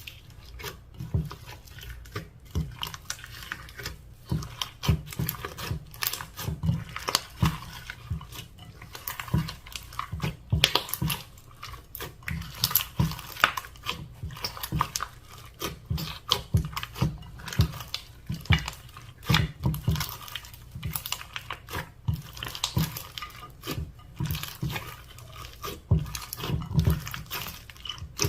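Slime being squished and mixed by hand: a steady, irregular stream of sticky clicks, crackles and small squelching pops.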